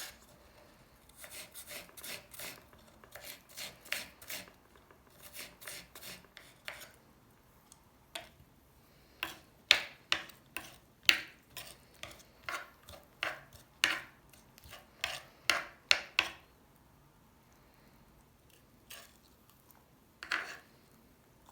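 Rasping, scraping strokes of hand food preparation with a kitchen utensil, in runs of about three strokes a second with short breaks. From about nine seconds in, the strokes turn louder and sharper for some seven seconds; after a pause come two lone strokes.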